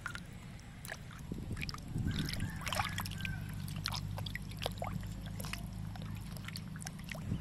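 Water sloshing and splashing in a metal basin as hands rub and turn a slab of raw pork belly, with irregular small splashes and drips. A low steady hum runs underneath from about two seconds in.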